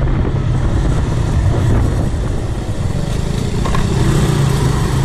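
Motorcycle engine running steadily while riding along, with road noise.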